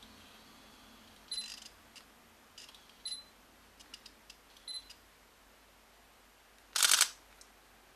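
Sony α6000 mirrorless camera taking a photo: three short high beeps with faint clicks, about a second and a half apart, as it focuses, then the shutter fires once near the end, the loudest sound.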